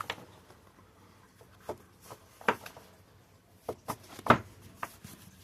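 Tarot cards being handled on a table: a few scattered short taps and flicks as a card is drawn, the loudest about four seconds in.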